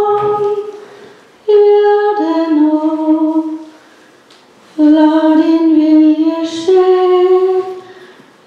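A woman singing unaccompanied into a microphone: slow, long held notes in short phrases, with pauses between the phrases.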